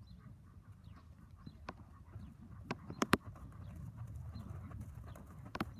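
Hoofbeats of an Appendix Quarter Horse gelding trotting on arena sand under a low steady rumble, with a few sharp clicks, loudest about three seconds in and again near the end. Faint bird chirps come and go.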